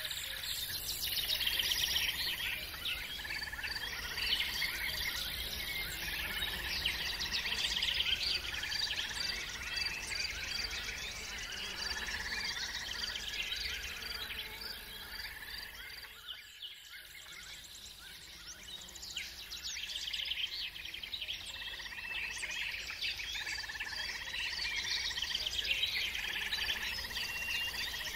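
Many birds chirping and singing together over a steady, rapidly pulsing insect-like trill. The sound dips briefly about two-thirds of the way through, then carries on.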